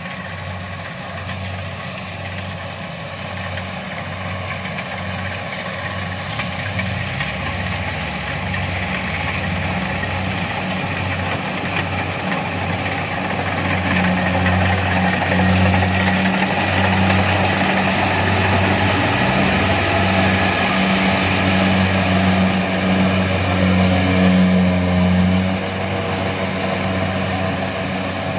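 Kubota DC-70 combine harvester's diesel engine running steadily, growing louder from about halfway through, with a brief dip near the end.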